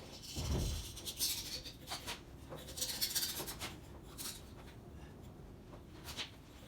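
Scraping and rubbing as a wiring harness is fished through a steel guard with a small cable, in irregular rasping strokes, with a dull thump about half a second in and a few light clicks.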